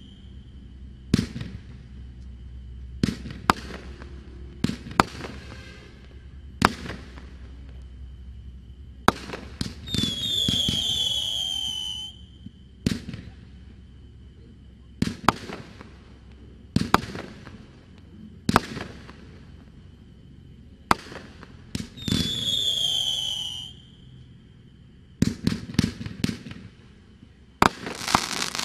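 Sabertooth 40-shot fireworks cake firing: sharp shot reports and bursts every second or two. A whistle falling in pitch lasts about two seconds each time, about a third and again two-thirds of the way in, and a dense run of rapid crackling comes near the end.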